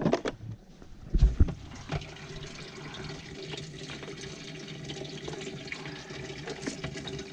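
Bass boat livewell with water running and splashing into it and a pump humming steadily, after a couple of knocks in the first second and a half as the hatch is opened.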